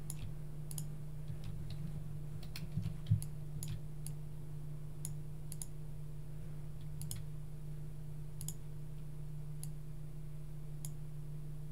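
Computer mouse clicks, a dozen or so at irregular intervals, over a steady low hum.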